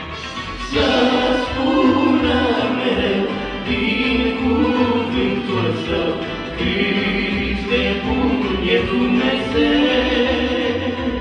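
Christian gospel song: a choir of voices singing over instrumental backing with a steady bass beat, swelling louder about a second in.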